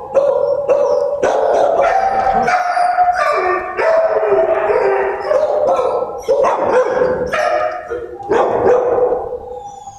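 Kennel dogs barking and howling together in a constant loud din: long held howls mixed with quick sharp barks, easing off near the end.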